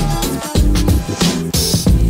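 Upbeat background music with a steady beat and bass.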